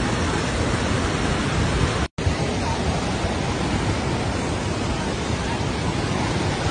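Muddy floodwater of a swollen river rushing past in a steady, dense rush of water, with a moment's dropout about two seconds in.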